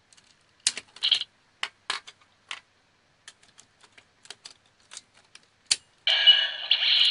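Irregular sharp plastic clicks and taps from a Kyoryujin combining-robot toy, about a dozen spread over five seconds. About six seconds in, a loud electronic sound starts playing from the toy's small speaker.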